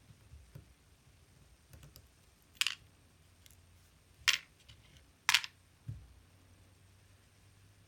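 Small metal clicks and short scrapes from a pin-tumbler lock cylinder and its tools being handled: three sharp scrapes about a second or more apart, then a soft low thump.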